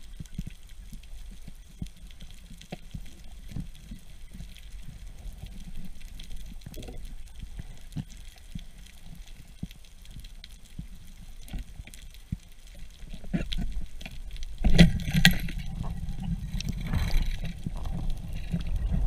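Underwater sound picked up through a camera housing: a low rumble with many scattered small clicks and crackles. The rumble grows louder about two-thirds of the way through, with a burst of sharp, loud knocks and rushing noise near the end as the pole spear is brought to bear.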